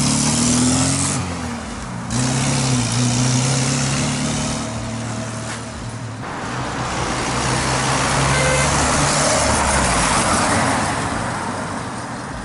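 Early Moskvich 2140's four-cylinder engine running while the car is driven, over heavy road and wind noise. The engine note dips briefly about a second in and again near two seconds, then carries on steadily and eases off toward the end.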